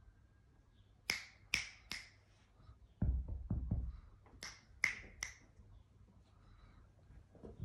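Finger snaps, three quick ones and then three more a few seconds later, with a few low dull thuds in between.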